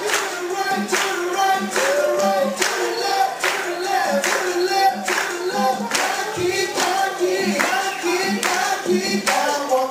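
Dance music with a steady beat, about one strong beat every 0.8 seconds, and singing voices over it.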